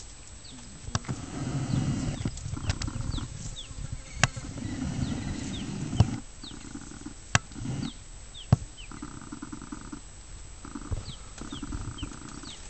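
Lions growling low and rough over a kill, in spells that are loudest in the first half, with several sharp cracks among them.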